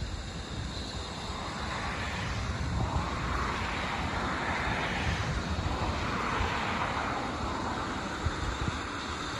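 Steam locomotive drifting slowly closer: a steady rush of steam over a low rumble, with soft, slow swells of exhaust hiss about every second and a half.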